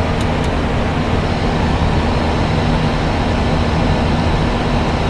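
Steady rush of airflow and engine noise inside an Airbus A320 cockpit, with a low hum beneath it and two faint ticks right at the start.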